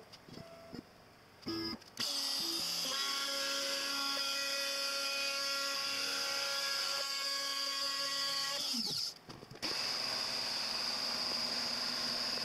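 Compact trim router on a CNC machine running with a steady high whine as it mills a juice groove into an end-grain maple cutting board. The whine starts about two seconds in. About three-quarters of the way through it falls in pitch and breaks off briefly, then comes back steady.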